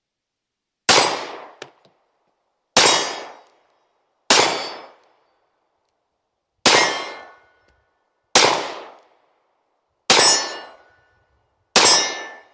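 Seven sharp bangs spaced about one and a half to two and a half seconds apart, each with a short ringing tail.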